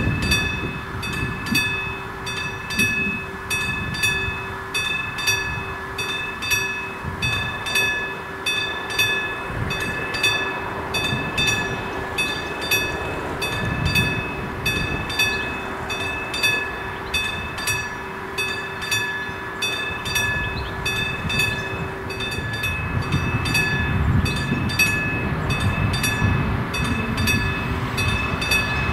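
Classic electric warning bell of an AŽD Praha level crossing ringing in a fast, even series of strikes while the crossing is activated for an approaching train. A low rumble grows under it in the last several seconds.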